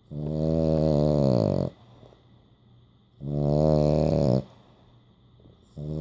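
French bulldog snoring in its sleep: three long snores about three seconds apart, the first falling in pitch as it ends, the third starting near the end. A snore typical of the breed's short, flat-faced airway.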